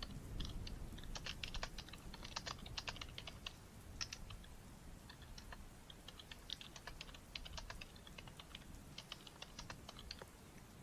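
Typing on a computer keyboard in quick runs of keystrokes, with a short lull about halfway through.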